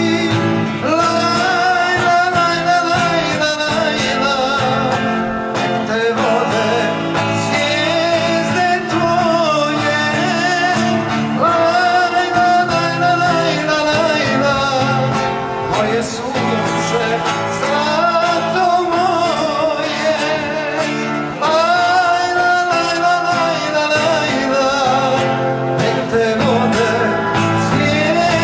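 Live song: a man's voice singing a slow melody with vibrato over a strummed acoustic guitar.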